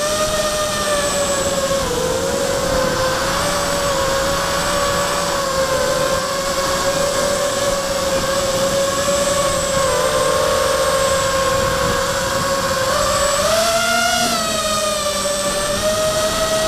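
Brushless motors of an MXP230 mini quadcopter whining steadily in flight, heard from the onboard camera, driven by Afro 12A ESCs flashed with BLHeli and running OneShot125. The pitch dips and wavers slightly with throttle, and climbs briefly about three-quarters of the way through before settling a little higher.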